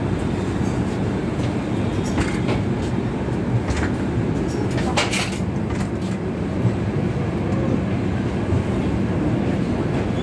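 Indian passenger train coach running slowly into a station, heard at its open doorway: a steady rumble of wheels on rail with scattered sharp clanks and rattles.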